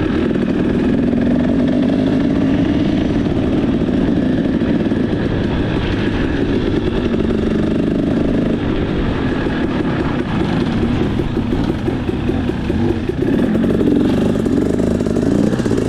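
KTM 300 EXC two-stroke dirt bike engine with a Pro Circuit exhaust, running under way on a trail, its pitch rising and falling with the throttle.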